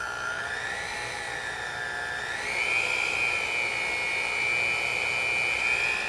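Cuisinart Power Advantage Plus 9-speed hand mixer running with its beaters in the air, the motor whine stepping through speeds: it dips in pitch at first, then rises to a higher speed about two and a half seconds in and holds steady.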